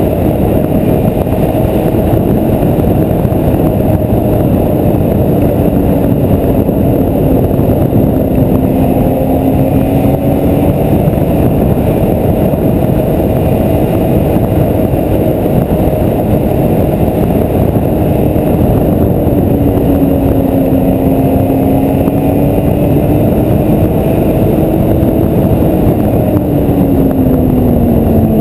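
Snowmobile engine running under way with a heavy rush of wind and track noise. Its pitch eases down and picks back up a few times, then drops near the end as it slows.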